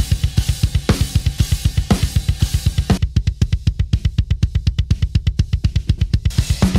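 Double bass drum played in rapid, even strokes, about eight a second, felt beaters on a Danmar metal kick pad. For the first part cymbals and snare play over the kick. A little under halfway they drop out, leaving only the kick drum as heard through its own microphone. The full kit comes back in near the end.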